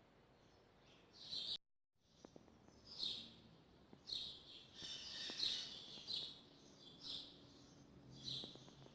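Small birds chirping repeatedly in the background, short high chirps coming every second or so. The sound cuts out completely for a moment about a second and a half in.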